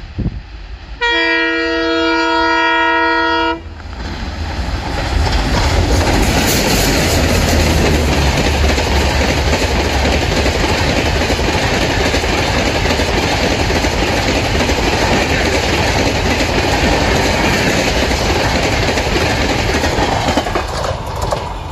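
Horn of an approaching twin WDM-3D diesel-hauled express, sounded once as a steady chord for about two and a half seconds. The locomotives and LHB coaches then pass close by in a loud, continuous rush of engine rumble and wheel-on-rail noise, easing slightly near the end.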